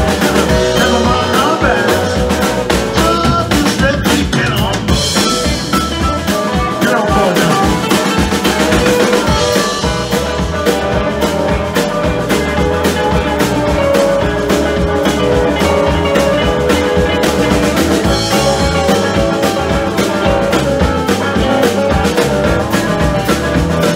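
Live rock band playing a song: electric guitars, keyboard and drum kit.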